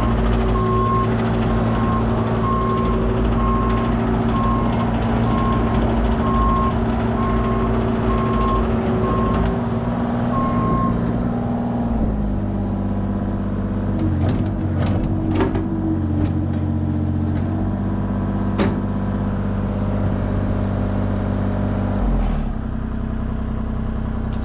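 A diesel truck engine is running at a raised idle while a backup alarm beeps steadily. About halfway through, the beeping stops and the engine settles to a lower idle, and a few sharp metallic clicks and knocks follow.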